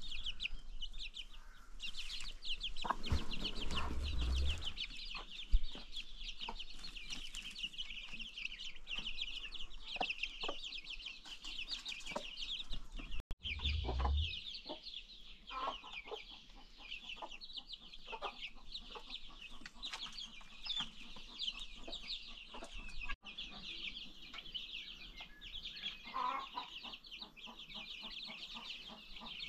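A flock of baby chicks peeping continuously, many short high cheeps overlapping, with a couple of brief low bumps.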